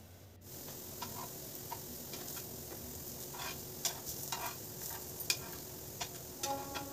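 Broccoli-paneer tikkis shallow-frying in oil in a pan: a steady sizzle with scattered pops and crackles, starting about half a second in. A flat metal spatula clicks against the pan a few times.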